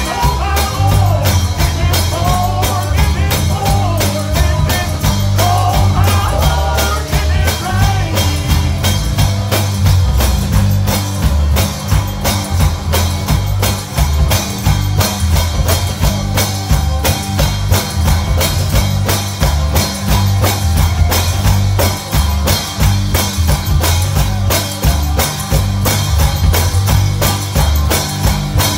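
Gospel song played live by a band: a fast, steady beat over heavy bass, with a wavering melody line on top for the first several seconds before it goes on as instrumental.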